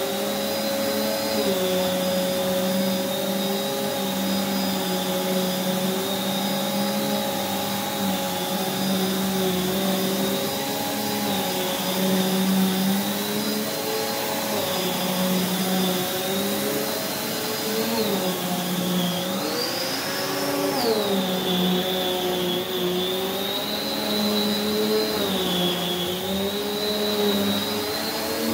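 Prolux X8 Elite backpack vacuum with its EBK360 power nozzle running continuously over carpet. The motor's whine wavers in pitch every few seconds, and rises sharply once about twenty seconds in before settling back.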